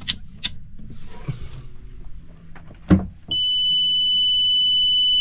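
A few light clicks and a knock, then about three seconds in a steady, loud, high-pitched electronic buzzer starts and keeps sounding without a break, typical of a sailboat's engine-panel alarm buzzer.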